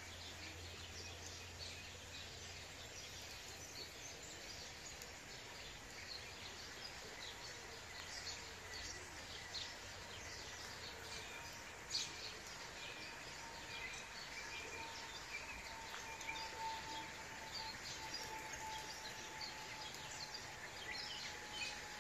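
Outdoor ambience of many small birds chirping, short scattered calls over a steady background hiss, with a faint steady tone coming in about a third of the way through.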